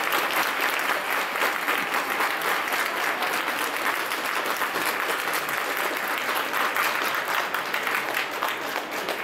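Large football-stadium crowd clapping: a dense, steady wash of applause that eases slightly near the end.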